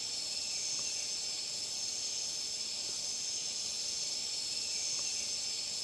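Steady chorus of rainforest insects singing: a shrill, unbroken drone made of several high pitches layered together.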